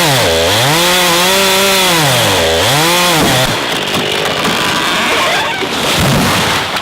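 Chainsaw running at high revs, its engine note dropping sharply twice and climbing back, then stopping about halfway. Cracking and crashing follow, with a low thud near the end, as the felled oak comes down and hits the ground.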